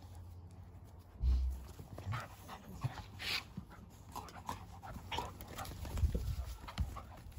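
A yellow Labrador and an English Show Cocker Spaniel play-wrestling on grass, panting and scuffling, with a heavy thump about a second in and more around six seconds as bodies hit the ground.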